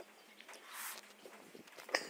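Mouth sounds of a person eating green mango slices by hand: a short breathy slurp about a second in, then a sharp bite near the end.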